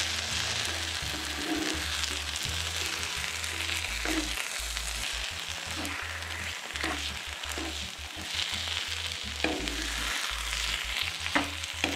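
Eggs and chopped vegetables sizzling in a nonstick frying pan while a metal spatula breaks them up and stirs, scraping and tapping against the pan several times.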